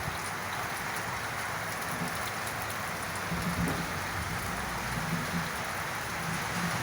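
Steady heavy rain falling and splashing on surfaces, with a low rumble underneath that swells and fades a few times.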